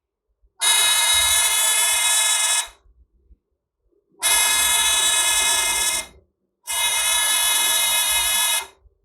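Electronic alarm buzzer on a breadboard laser security circuit sounding three times, each a steady buzz of about two seconds that cuts off sharply. It sounds when the laser beam is blocked and stops when the reset switch is pressed.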